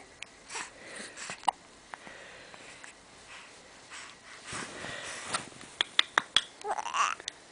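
Baby with the hiccups: scattered short, sharp hiccups and sniffs, with faint little vocal sounds from the baby around the middle and near the end.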